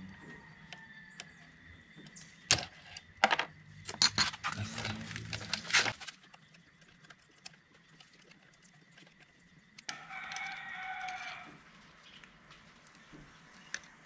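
A rooster crowing once, about ten seconds in. Before it, a run of sharp clicks and knocks, over a low steady hum that stops partway through.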